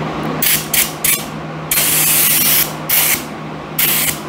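Gravity-feed spray gun hissing in six bursts as sealer is sprayed onto a motorcycle gas tank: three quick bursts, then three longer ones, the longest about a second. A ventilation fan hums steadily underneath.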